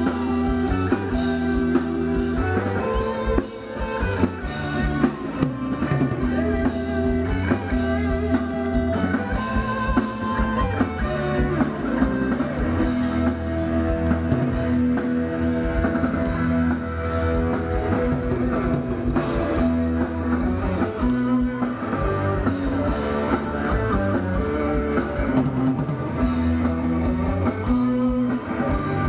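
Heavy metal band playing live through a PA: electric guitars and drum kit.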